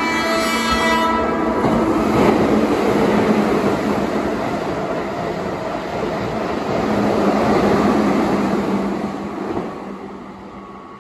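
Keihan 6000 series electric train passing through the station at speed without stopping: a loud rush of wheel and rail noise with clattering over the rail joints, fading away near the end. It opens with a held, chord-like pitched tone that stops about a second in.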